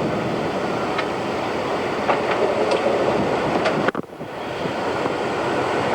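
Steady heavy rushing of wind and rain around the storm-chase van, with scattered sharp ticks. The sound drops out abruptly for a moment almost four seconds in, then builds back up.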